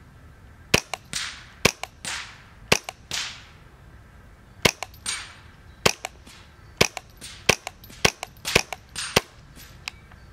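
Sound-moderated Smith & Wesson M&P 15-22 .22 LR semi-automatic rifle firing subsonic rounds: about ten sharp, clipped shots at an uneven pace of roughly one a second.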